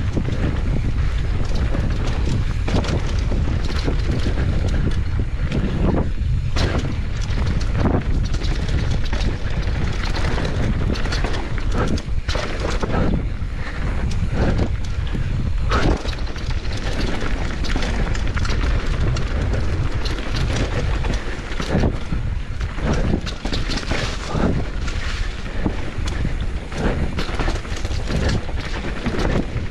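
Wind buffeting the microphone of a camera on a mountain bike descending a dirt trail at speed. The tyres roll over dirt and stones, and the Canyon Torque full-suspension bike knocks and rattles over bumps again and again.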